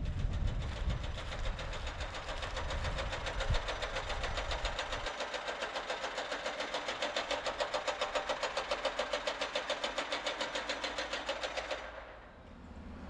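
Rapid, even mechanical clattering, many strokes a second, over a low rumble that fades about five seconds in; the clatter stops suddenly about twelve seconds in.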